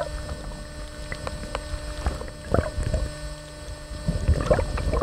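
Underwater recording: low rumbling water noise and bubbling with a faint steady hum, the bubbling swelling again near the end.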